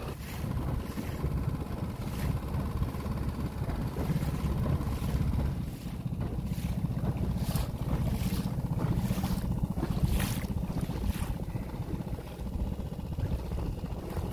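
Wind on the microphone and water rushing past an inflatable Zodiac boat under way: a low steady rumble with brief hissing gusts now and then.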